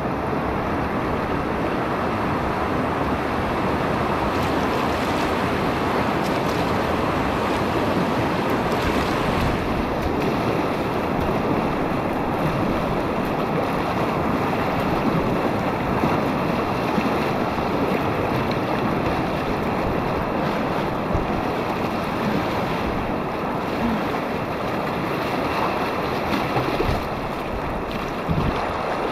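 River whitewater rushing steadily around a kayak's hull as it rides through a rapid.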